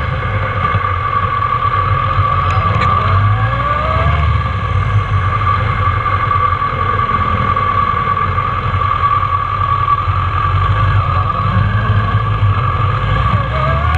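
Kawasaki ZRX1200's inline-four engine running at low, fairly steady revs while the bike cruises, with wind and road noise, heard from on board.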